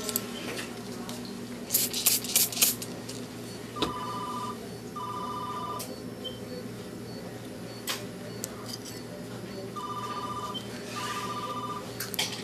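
Telephone ringing with a double-ring cadence: two short warbling rings in quick succession about four seconds in, and another pair about ten seconds in. A cluster of sharp clicks about two seconds in is the loudest sound. A steady low hum runs underneath.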